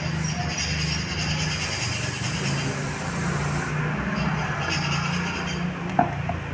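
Vehicle engine running steadily at a constant idle-like speed, with a single sharp knock near the end.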